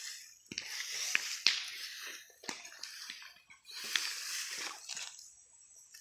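A homemade claw rake (cakar ayam) scraping through loose soil and dry debris in several rough strokes, with a few sharp clicks among them.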